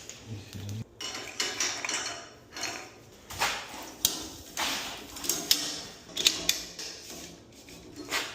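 Metal hardware and tools clinking, knocking and scraping in quick irregular strokes as a belt-drive garage door opener is taken apart to change its belt.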